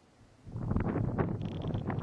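Wind buffeting the microphone in gusts, a low rumbling blast that starts about half a second in.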